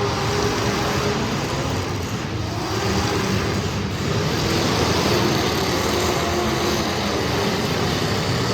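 Street stock race car engines running steadily at speed, a loud continuous engine sound with no big changes in pitch.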